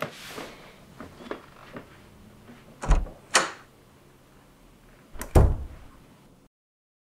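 Door sounds in a house: a few light clicks and knocks, a heavy thud about three seconds in followed at once by a sharp click, and another heavy thud a couple of seconds later; the sound cuts off suddenly near the end.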